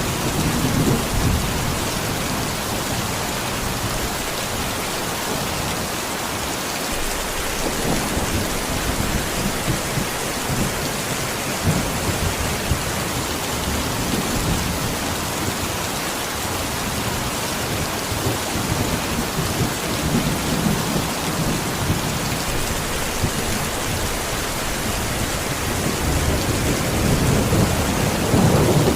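Heavy rain falling steadily, a dense, even hiss, with low rumbling swells now and then that grow louder near the end.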